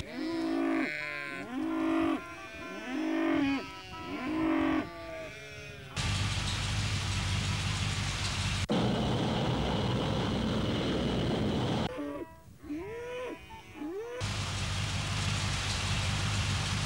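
Sound montage cut hard between sections: short pitched calls that rise and fall, about one a second, then a steady low hum, a stretch of even hiss, more rising calls, and the low hum again.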